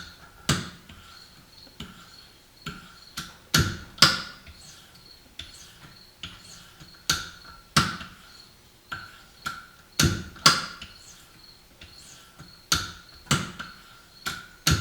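Sharpening stone on a KME sharpener worked in strokes along the edge of a single-bevel broadhead: a run of sharp clicks and knocks, a few a second and unevenly spaced, with a faint thin ringing between them.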